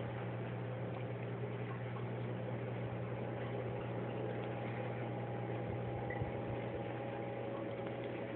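Steady room noise: an even hiss with a low, constant electrical hum, with no meows or other clear events.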